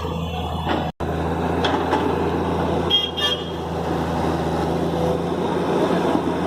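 Heavy diesel engine running steadily, with a sudden brief break about a second in and two short high beeps about three seconds in.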